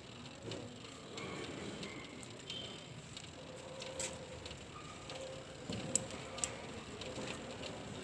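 Faint background noise with a few sharp clicks, the loudest about six seconds in and another just after.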